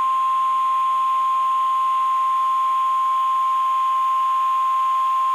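NOAA Weather Radio warning alarm tone: one steady, unbroken tone at about 1050 Hz over faint radio hiss. It is the signal that a warning is about to be read.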